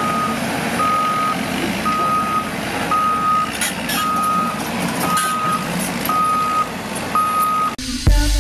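CAT 320D GC excavator's travel alarm beeping steadily about once a second over its running diesel engine. The machine sound cuts off abruptly near the end and music starts.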